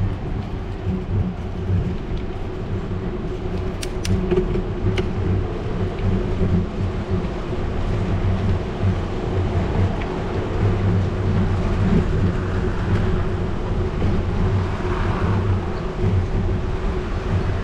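Steady rolling rumble of a bicycle ride on a paved street: tyre and frame noise carried through the mount, with a few sharp clicks about four to five seconds in.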